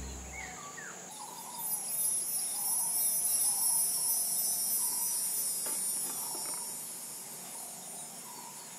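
Insects chirring steadily in a high, continuous drone, with a few short bird chirps about a second in.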